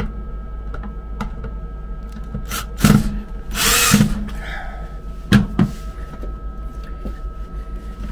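Knocks and clacks of tools and fittings being handled, with a short burst of hissing noise around three and a half seconds in, over a steady low machine hum and a faint steady high tone.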